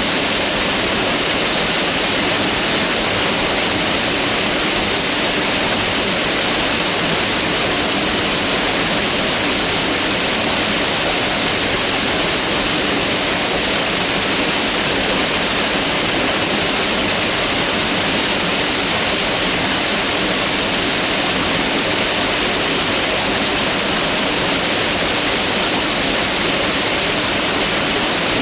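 Mountain river rushing steadily over rocks: a continuous, even hiss of white water with no changes.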